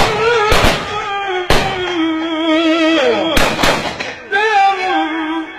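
A man's voice singing a long, wavering melodic line through a microphone and PA, cut into by several sharp, loud bangs: two near the start, one a second later, and a quick cluster after about three and a half seconds.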